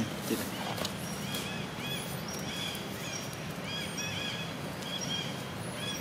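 Short, high-pitched chirping calls repeating again and again over a steady outdoor background.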